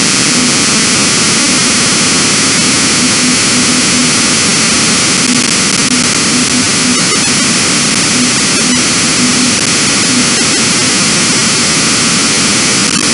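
Harsh, loud computer-generated noise from a GDI malware payload, bytebeat-style audio made up of a steady hiss with a faint buzzing tone that pulses on and off underneath.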